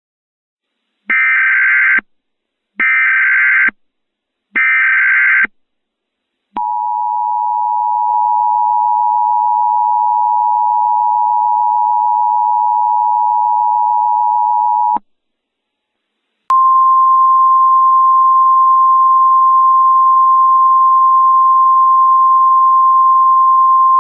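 Emergency Alert System tones marking the start of an alert. Three short bursts of warbling SAME header data come first, then the EAS two-tone attention signal held for about eight seconds. After a short pause the single-tone NOAA Weather Radio alert tone begins and carries on.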